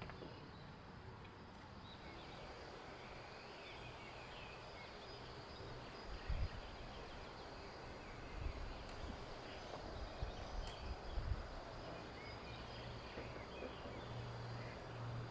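Steady outdoor hiss with faint bird chirps scattered through it, and a few short low thuds around the middle.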